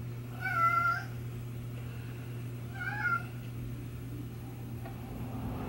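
Domestic cat meowing twice: a longer meow about half a second in and a shorter one about three seconds in, over a steady low hum.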